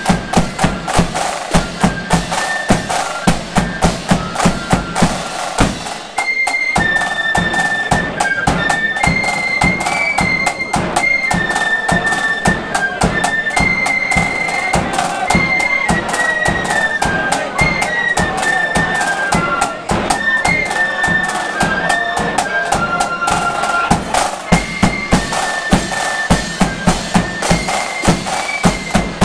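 Flute band playing a march: flutes carry the melody over snare drums, a bass drum and clashing hand cymbals. After a short break about six seconds in, the flutes take up the tune strongly while the drums keep a steady beat.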